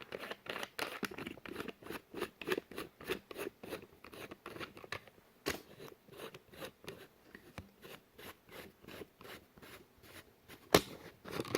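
Handling noise: a rapid run of small clicks and scrapes, about three or four a second, thinning out later, with one louder click near the end.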